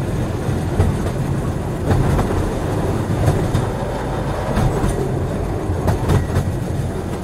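Train running on the rails: a steady low rumble with irregular clicks of the wheels over rail joints.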